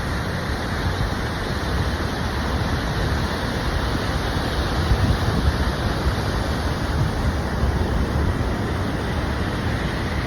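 Mountain waterfall: a steady, loud rush of falling water, with wind buffeting the microphone.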